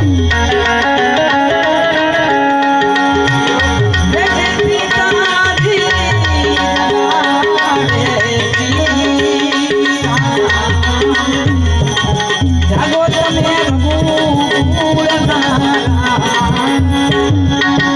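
Harmonium holding and moving between sustained chords over a steady tabla rhythm, the accompaniment of a Gujarati prabhatiyu, a devotional morning song.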